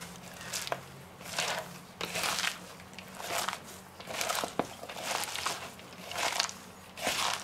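Shredded white cabbage and carrot squeezed and kneaded by a gloved hand in a bowl: a rhythmic crunching rustle, about one squeeze a second, the kneading that breaks down the cabbage fibres for coleslaw.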